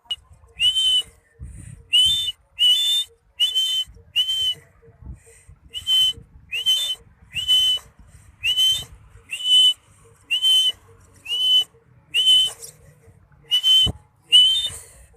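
A lovebird giving short, shrill, whistled calls over and over, about one a second.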